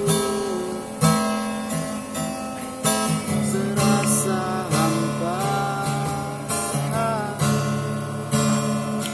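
Acoustic guitar strummed in a slow, steady rhythm, chords struck about once a second or two.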